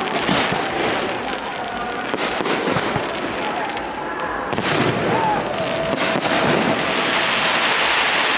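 Fireworks display: a rapid run of bangs and crackling bursts overlapping one another.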